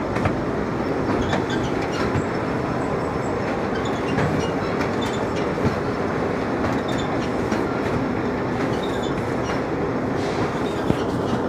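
Steady, loud mechanical rumble with many scattered metallic clicks and ticks, and two sharper knocks, one about halfway through and one near the end.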